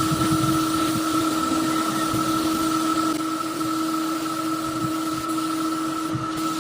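A machine motor running steadily, with two constant humming tones over an even hiss.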